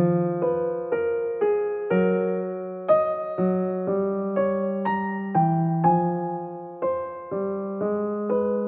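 Background piano music: a gentle melody of single notes struck about twice a second, each ringing and fading.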